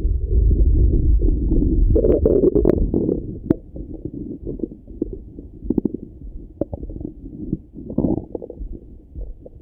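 Stomach rumbling and gurgling heard through a Littmann stethoscope on the belly. A loud low rumble with a burst of gurgles in the first three seconds or so, then softer scattered gurgles and pops.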